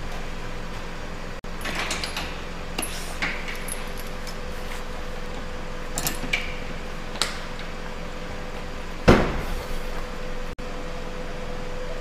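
Metal clicks and clinks from a trailer being hitched to a car's tow bar: chain and coupler being handled, with one loud clunk about nine seconds in. A steady hum runs underneath.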